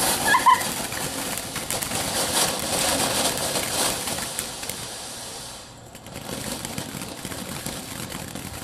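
Consumer fireworks crackling: a dense run of rapid small pops and fizzing that dies down about six seconds in, then carries on more quietly.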